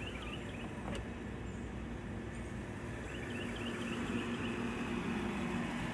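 Backyard ambience: a steady low hum that grows a little louder toward the end, with a short run of bird chirps about three seconds in.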